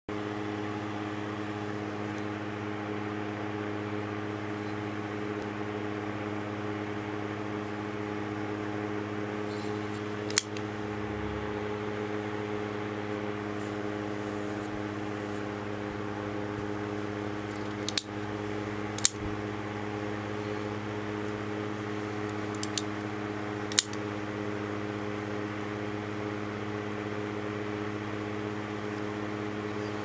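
Push-button automatic folding knife clicking sharply as its spring-driven blade is fired and handled: one click about ten seconds in, then a cluster of five between about 18 and 24 seconds, one of them a quick double. A steady electrical hum lies under it throughout.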